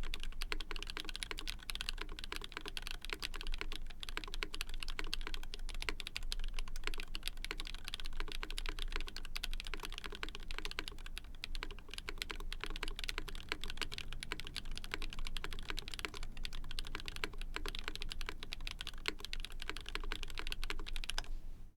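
Fast, continuous typing on a Kyuu mechanical keyboard with a POM plate, Oooolong long-pole linear switches lubed with Krytox 205g0, and GMK doubleshot ABS keycaps. The keystrokes come as a dense patter with brief lulls, and the sound cuts off suddenly at the end.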